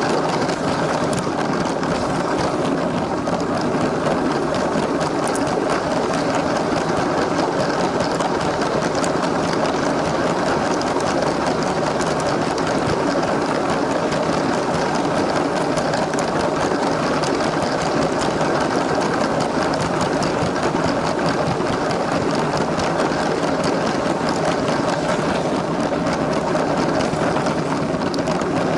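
LEGO toy train running steadily along plastic track, its small electric motor whirring and its wheels rattling and clicking over the rails.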